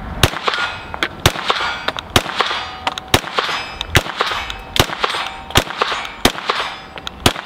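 Ruger LC Carbine in 5.7×28mm, fired unsuppressed, shooting a steady string of nine single shots about a second apart, each sharp crack trailing off in echo. Steel targets ring faintly after hits.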